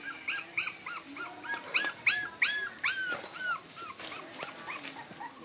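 Young puppy whimpering in a rapid run of short, high squeals, several a second, loudest in the middle and trailing off near the end, over faint wet clicks of lapping milk.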